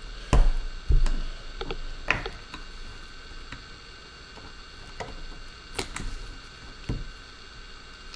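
Handling noise at a workbench: two dull knocks in the first second, then scattered sharp plastic clicks and taps as small drone parts and a screwdriver are picked up and set down.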